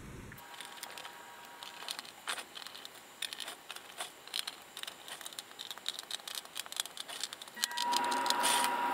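Scattered light clicks and taps of hard plastic and metal parts being handled on a clear acrylic robot sphere. Near the end a louder steady hum with a thin high tone comes in.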